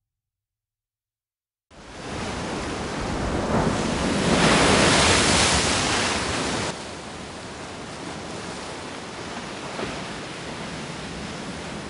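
Waves washing onto a shore, starting about two seconds in. The wash swells to a peak, then drops suddenly to a steadier, quieter surf.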